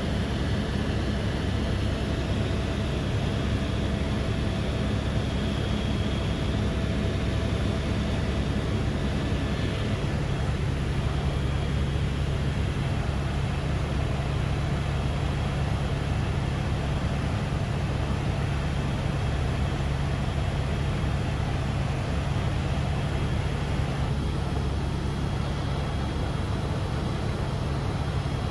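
Helicopter in flight: a steady drone of rotor and engine, with a low hum that shifts slightly about ten seconds in.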